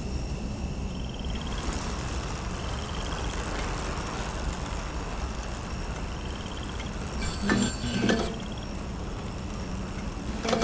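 A child's bicycle ridden on a road at night: a steady low rumble with a few short runs of fast ticking, and two louder rattles about seven and eight seconds in.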